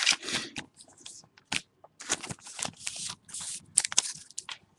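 Crinkling and tearing of a foil trading-card pack wrapper, with cards being handled, in a run of short irregular rustles.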